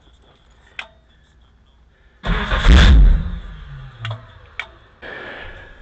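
The 1959 Ford Thunderbird's V8 turned over briefly by the starter, a loud burst of about a second that spins down, during a no-start diagnosis. It is set among a few sharp clicks, and a shorter, weaker burst comes near the end.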